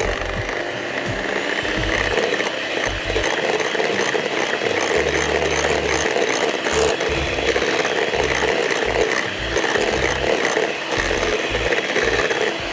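Electric mixer running steadily, its beaters whipping butter-cake batter of creamed butter, sugar and eggs.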